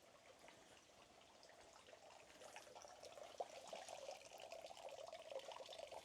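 Faint water running and splashing at a stone hand-washing basin (temizuya) fed by a spout, growing louder from about two seconds in.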